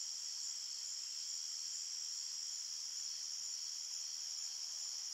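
Quiet, steady, high-pitched chirring hiss with a faint, even pulse, much like an insect chorus.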